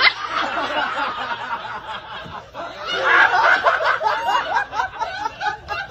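Several people laughing and snickering together, the laughter swelling louder about three seconds in.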